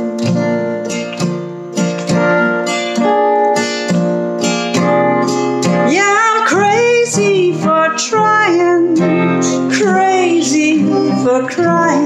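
Acoustic guitar strummed steadily. From about halfway through, a sung voice without words slides up and wavers over it.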